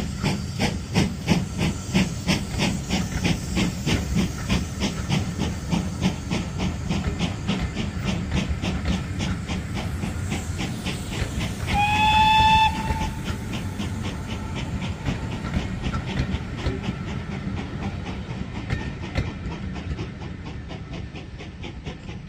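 Steam-hauled passenger train moving off: a steady beat of about four strokes a second with the rumble and clatter of the coaches on the track, slowly fading as it draws away. About twelve seconds in the steam locomotive's whistle sounds once, for about a second.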